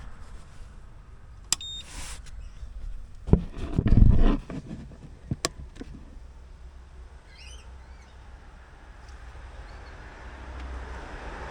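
A short high electronic beep with a click about a second and a half in, as the ITech 2000W inverter is switched on. A few sharp clicks and a heavy thump follow a couple of seconds later.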